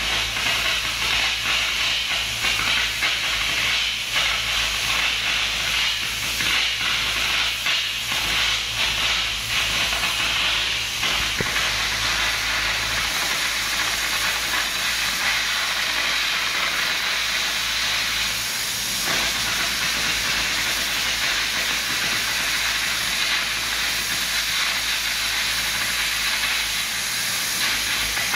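Torch cutting into the steel of a cracked dump truck body: a loud, steady hiss with crackling, busier in the first half.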